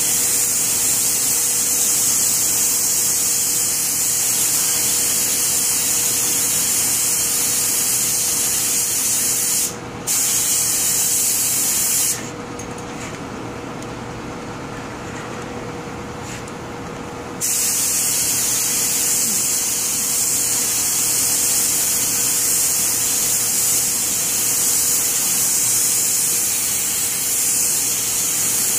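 Compressed-air paint spray gun hissing steadily as it sprays paint onto wicker furniture. The hiss stops for a moment about ten seconds in, then stops again for about five seconds when the trigger is let off, leaving a fainter low hum, and starts again.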